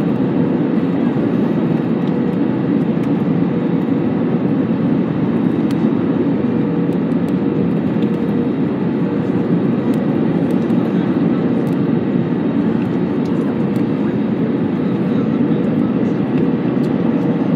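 Airbus A320 on final approach, heard from inside the passenger cabin: a steady rush of engine and airflow noise with a faint steady hum running through it.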